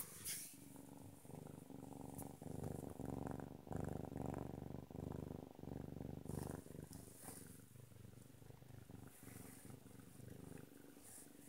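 Domestic cat purring in long alternating stretches, loudest in the first half and softer toward the end, with a brief rustle of handling at the start.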